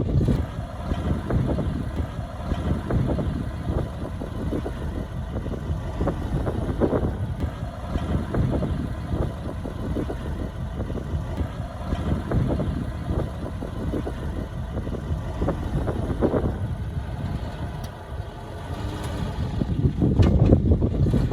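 Heavy earthmoving machinery running: a diesel engine working steadily, with the engine swelling louder a few times, most strongly near the start and near the end.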